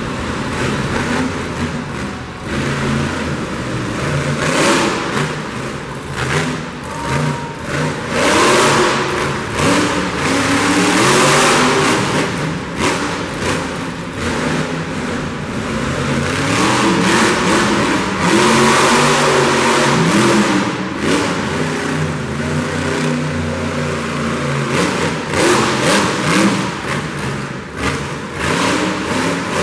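Monster truck engine revving hard again and again, its pitch rising and falling as the truck accelerates, turns and lifts its front wheels.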